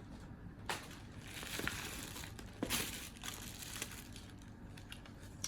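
Packaging being handled, with crinkling and rustling and a couple of sharp clicks, the first about a second in and the second near the middle.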